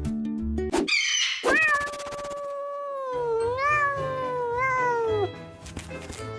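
Cartoon cat meowing: a short falling cry about a second in, then one long drawn-out yowl of nearly four seconds that wavers twice and drops away at the end. Soft background music plays under it.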